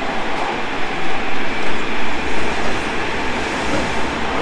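Tobu 30000 series electric train running at speed, heard from inside the car: a steady, loud rumble of wheels on rail that swells about a second in.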